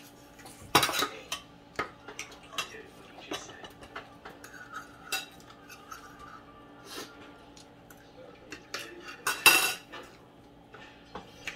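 Metal forks and spoons clinking and scraping on dinner plates during a meal, in scattered light clicks, with two louder clatters about a second in and near the end.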